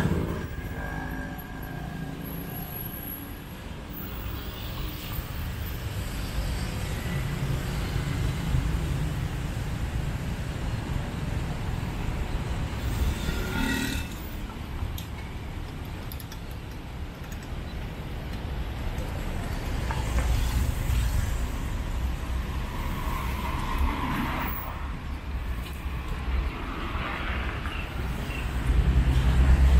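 Road traffic passing on a city bridge: a steady rumble of cars that swells and fades as vehicles go by, growing louder near the end.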